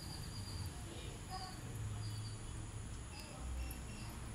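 Faint background: a steady low hum with scattered short, high chirps.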